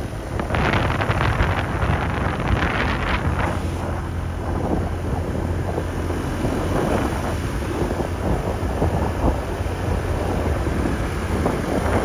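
Wind buffeting the microphone on a moving motor scooter, coming in gusts over a steady low drone from the ride.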